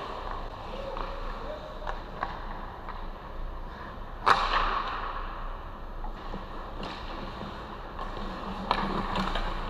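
Ice hockey play in an indoor rink: skates scraping on the ice and scattered clacks of sticks and puck, with one loud, sharp crack a little over four seconds in.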